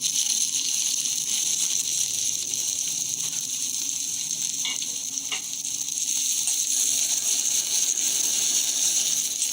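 Chopped onions and whole spices sizzling steadily in hot oil in a kadai, with two faint clicks about halfway through.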